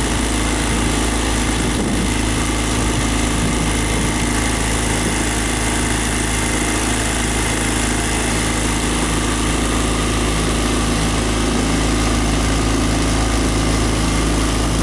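Motorboat outboard engine running steadily at an even speed, a constant hum with no change in pitch or level.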